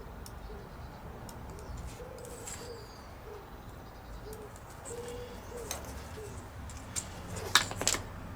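A dove cooing: a repeated low phrase of one longer coo followed by shorter ones, coming round about every three seconds. A few sharp clicks near the end are the loudest sounds.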